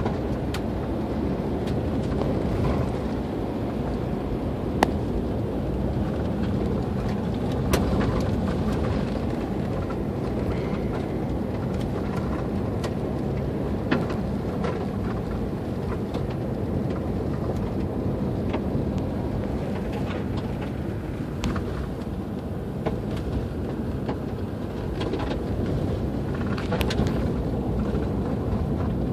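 Car driving on a gravel road, heard from inside the cabin: a steady low rumble of tyres on gravel and running gear, with a few sharp clicks scattered through it.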